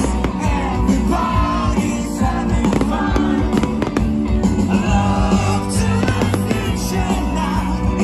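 Loud amplified pop music from a stage PA, with a singing voice over a heavy bass line and a steady drum beat.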